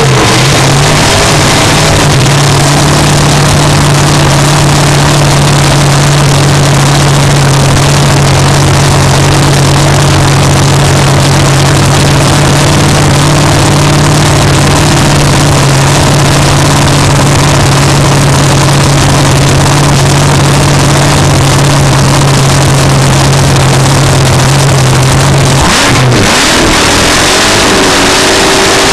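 Alcohol-burning dragster engine running very loud and steady at idle, close to the onboard microphone. Near the end the note breaks off briefly, then starts to rise.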